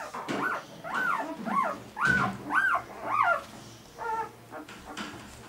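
Newborn Irish setter puppies crying: a quick run of short, high squeals, each rising and falling in pitch, then a few fainter ones near the end.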